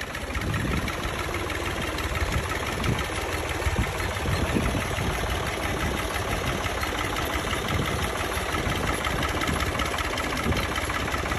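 Farm tractor engine running steadily as it pulls a loaded trolley along a field path.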